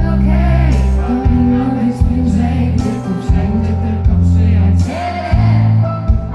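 Live pop music: a woman singing into a microphone over band accompaniment, with deep bass notes that change about once a second.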